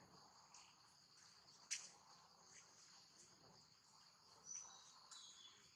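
Faint, steady high-pitched chorus of insects chirping, with a sharp click a little under two seconds in and a brief high chirp past halfway.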